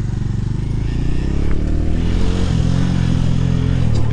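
Bajaj Dominar motorcycle engine running at low speed under light throttle, its note rising a little about halfway through and then holding steady, with a hiss over it.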